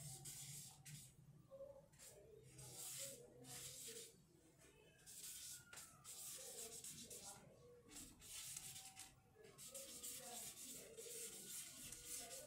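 Marker pen writing on a large sheet of paper: a faint run of short scratchy strokes, one after another with brief pauses, as letters are written out.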